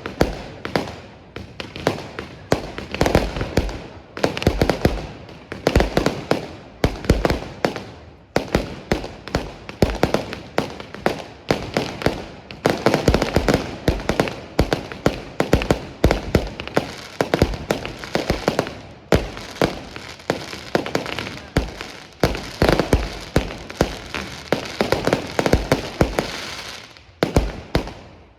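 Fireworks display: shells bursting in rapid, overlapping bangs, several a second, with echoing booms and crackle between them. The barrage thins briefly near the end.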